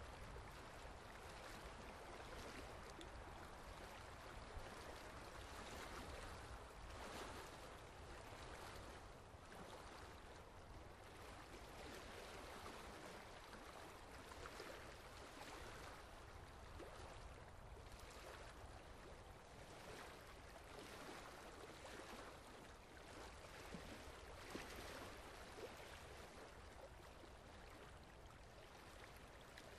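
Faint, steady wash of water noise, like a trickle, from a leaking tap dripping into a concrete sink, with a few soft ticks of drops now and then.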